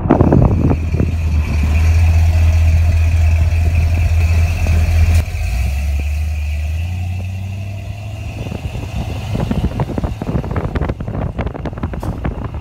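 1979 Chevrolet C10's 350 small-block V8 running through headers and Flowmaster street mufflers: a loud, deep exhaust rumble that drops in pitch about five seconds in, then fades. Wind buffets the microphone in the last few seconds.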